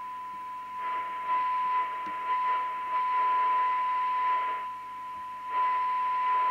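CB radio receiver's speaker sounding a steady 1 kHz test tone from a weak signal-generator signal, with hiss that swells, fades and returns as the cores of the receiver's tuning coils are turned during receive alignment.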